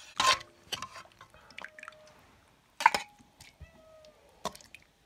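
Steel plate and utensils knocking and clinking in a few sharp, separate taps, with wet dripping of curry gravy.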